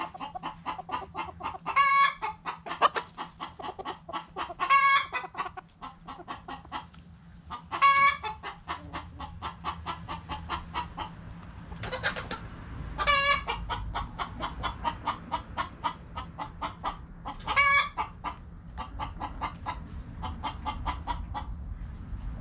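Backyard chickens clucking in a steady run of short clucks, with five louder drawn-out hen calls spaced through it.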